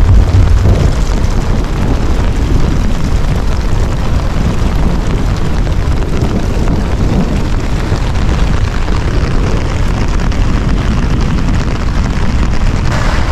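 Strong wind blowing steadily, with a heavy low rumble of the wind buffeting the microphone.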